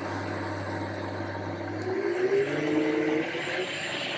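Boxford lathe driven by an inverter-controlled variable-speed motor, spindle speeding up as the speed control is turned up. It makes a steady mechanical running noise, with a low hum that stops about two seconds in and a whine that rises in pitch after it.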